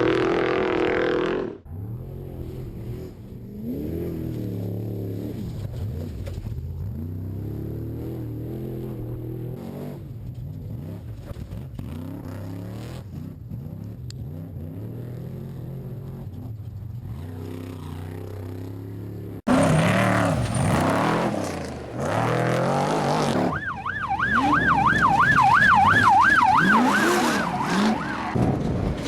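Trophy truck engine racing, revving up and down through several cut-together passes, much quieter in the middle stretch than at the start and end. Near the end, a warbling siren wails for about four seconds over the engine.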